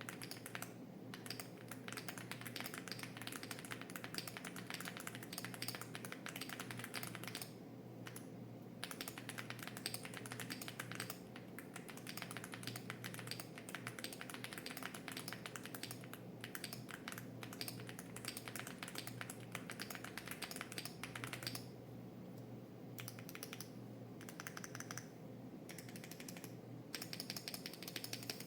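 Mechanical keyboard with heavy tactile switches and cherry-profile PBT keycaps being typed on fast and continuously, a steady stream of key clacks broken by a few brief pauses.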